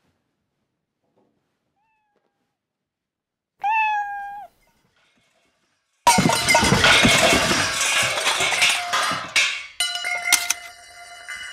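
A single cat meow a little past the first third, then about halfway in a loud crash and clatter as a chair and lamp topple over, trailing off into metallic ringing and rattling.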